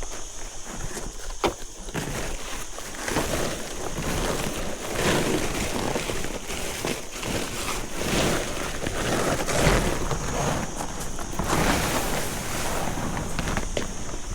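Wind buffeting the microphone, rising and falling in gusts over a steady high-pitched hiss, with a single knock about a second and a half in.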